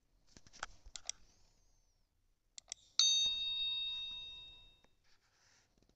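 Subscribe-button animation sound effect: a few soft clicks, then two quick clicks and a bright bell ding about three seconds in that rings and fades over nearly two seconds.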